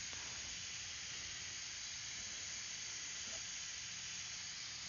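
Steady faint hiss, with nothing else standing out.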